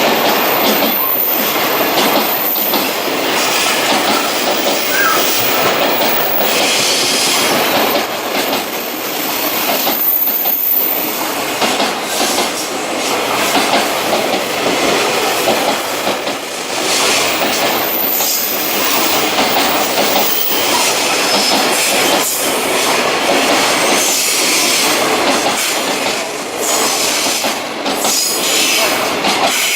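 A long freight train's wagons rolling past without a break, wheels clicking steadily over the rail joints.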